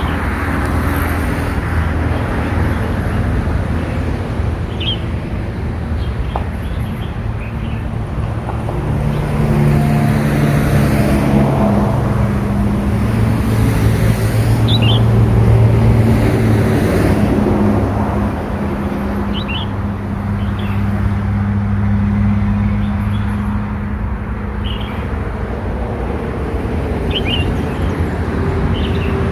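Several short, high chirps from a young red-whiskered bulbul, a few seconds apart, over a louder steady low engine rumble like road traffic.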